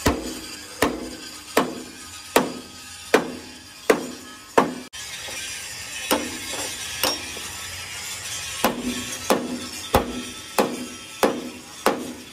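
Hammer blows on steel in a steady rhythm, about one every three-quarters of a second, each ringing briefly. There is a short pause after the first seven or so blows, a few lighter strikes, and then another run of about six blows near the end.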